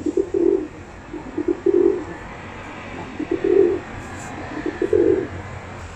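Pet pigeon cooing: four low coo phrases about a second and a half apart, each a few quick stuttered notes running into a longer held one.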